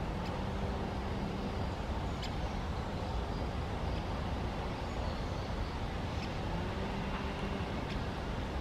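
A steady low outdoor rumble, with a few faint, brief high calls from sand martins flying over their colony wall.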